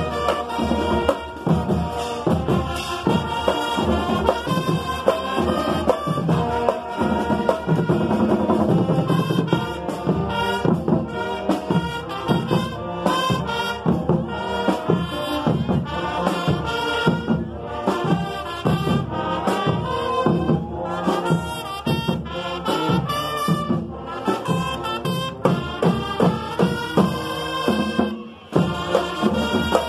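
Marching band playing: brass section sounding melody and chords over drums.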